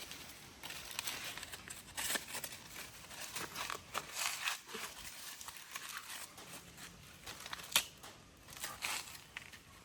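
Dry corn husks and leaves rustling, crinkling and tearing as they are handled, in irregular bursts with scattered clicks and one sharper snap about three quarters of the way through.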